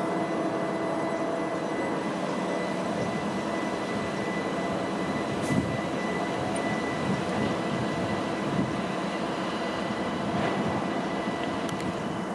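Electric multiple-unit train at the platform, giving a steady hum with a thin, high, steady whine over it.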